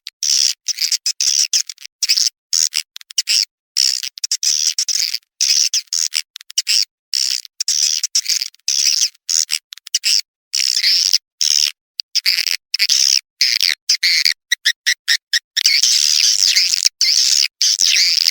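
Swiftlet lure call recording: dense, high twittering and chattering of swiftlets, of the kind used to draw swiftlets into a nesting house. It is chopped into short bursts with abrupt silent gaps and runs more steadily near the end.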